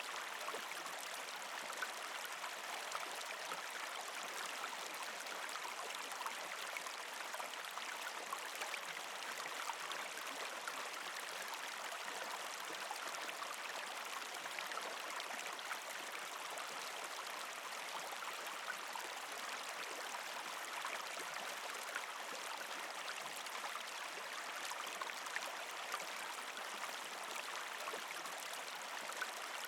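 Partially frozen creek flowing over rocks: a steady rush of water with many small gurgles and trickling drips.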